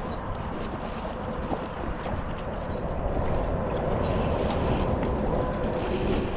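Wind buffeting the microphone over water noise, with a faint steady hum that grows a little louder in the second half.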